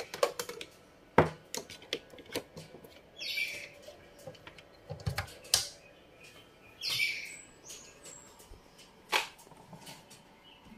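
Irregular clicks and knocks of audio cables and plugs being handled and connected to an amplifier's input, with three short hissy scrapes.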